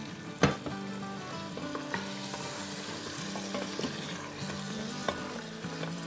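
Goat meat and spices sizzling in an Instant Pot's steel inner pot on sauté mode, stirred and scraped with a spatula, with one sharp knock about half a second in. This is the bhuna stage: the masala is fried with a spoonful of water at a time so it does not burn.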